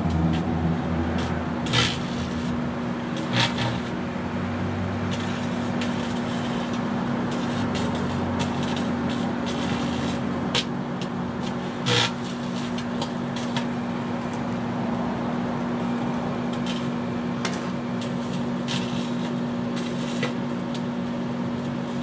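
Microwave oven running with a laptop motherboard, video card and CPU inside: a steady electrical hum broken by sharp crackles and snaps of arcing, with louder snaps about two, three and a half, ten and a half and twelve seconds in. The arcing came from the CPU's corners, which it blew out.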